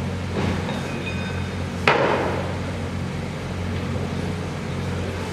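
A single sharp bang about two seconds in, with a short ringing tail, like a hammer blow on site, over a steady low machinery hum; a fainter knock comes just before it.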